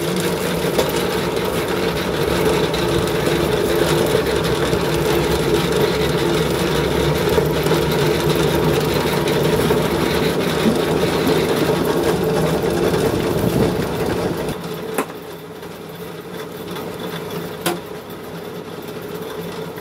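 Small animal-feed pellet machine running steadily as pig-feed mash is pressed into pellets, a loud, even mechanical hum. About three-quarters through, the low hum drops away and the machine runs lighter and quieter, with a couple of short knocks.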